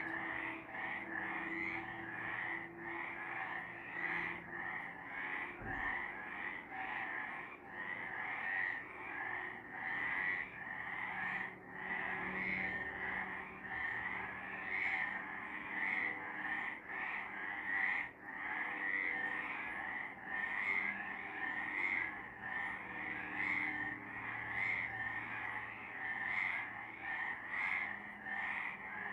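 Chorus of several frogs calling at night, a dense run of short repeated calls overlapping without a break.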